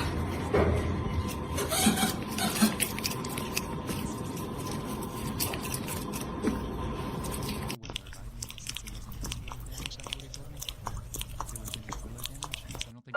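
Chewing and crunching, with many short clicks. The sound drops abruptly about eight seconds in to a quieter stretch.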